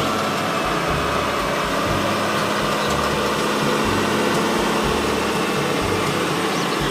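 Steady engine running sound of a dump truck, idling with an uneven low throb and a constant hum.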